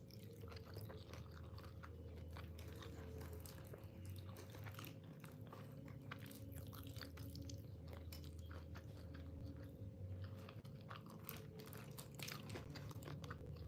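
A person eating chicken close to the microphone: biting and chewing the meat, with many small irregular mouth clicks and crunches. A steady low hum runs underneath.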